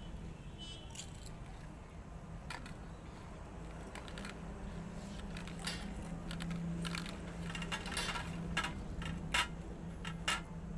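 Light clinks and taps of phuchka and fingers on steel plates and small steel bowls, growing more frequent near the end, over a steady low hum.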